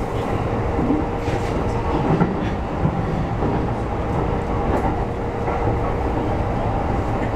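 Ride noise heard from inside an E233-series electric commuter train running along the track: a steady rumble of wheels on rail with a faint steady hum and a few short clacks.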